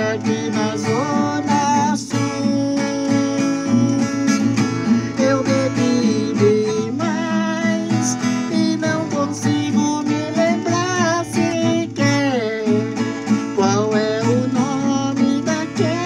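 Steel-string acoustic guitar playing an instrumental break of a sertanejo song, with a wavering, gliding melody line held over the accompaniment.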